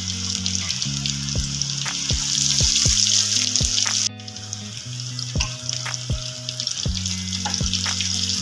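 Pieces of coated fish deep-frying in hot oil, a loud steady sizzle. It cuts out for an instant about halfway and resumes slightly quieter. Background music with a steady beat and bass notes plays underneath.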